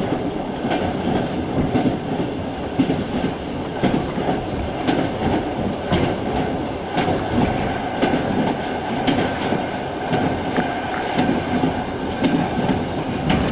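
Passenger train running along the rails, heard from inside the carriage: a steady rumble and rattle with scattered sharp clicks and knocks from the wheels and coach.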